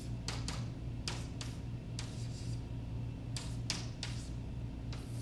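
Chalk writing on a blackboard: short, irregular taps and scratches as the strokes of an equation go down, over a low steady hum in the room.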